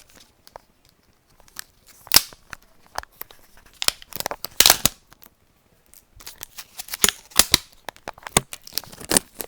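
Packaging of a thermal grease syringe being torn open and crinkled by hand: irregular crackling rustles, loudest in clusters about two seconds in, around four to five seconds and again around seven seconds.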